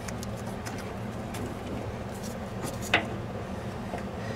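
Light metal clicks from a part being fitted by hand at a car's steering gear, with one sharper clink about three seconds in, over a steady low hum.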